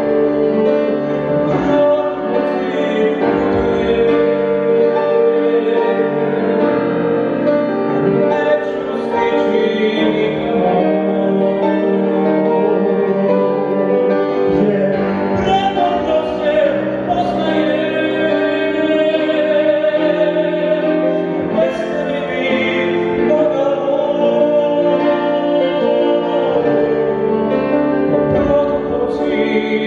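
A solo male voice singing a song in Serbian through a microphone, with piano accompaniment.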